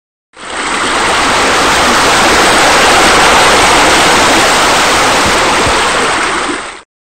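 Steady rush of falling water that fades in quickly, holds even, and stops abruptly near the end.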